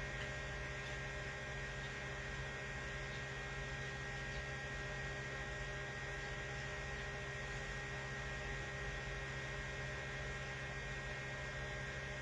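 Steady electrical hum with a faint background hiss, unchanging throughout, with no other distinct sounds.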